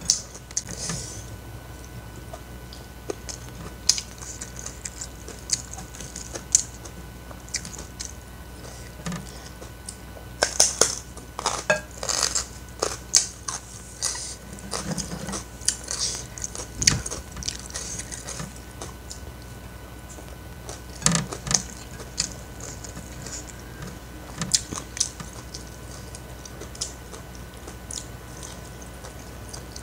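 Close-miked chewing and wet mouth smacks of a person eating rice and side dishes by hand, coming in irregular clusters of clicks and smacks that are busiest in the middle stretch, with fingers picking food from the plates.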